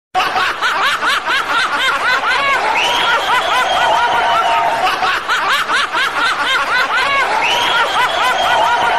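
High-pitched snickering laughter: a quick run of squeaky rising-and-falling notes that plays through twice.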